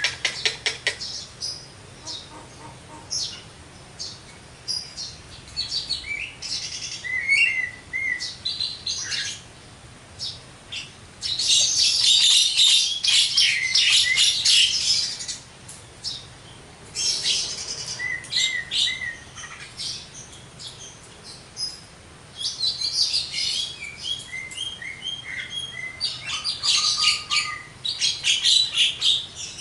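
Javan myna (jalak kebo) singing a varied, chattering song of whistles and harsh notes with mimicked phrases, in short phrases broken by pauses and two long, loud, dense bursts, one about eleven seconds in and one about twenty-two seconds in.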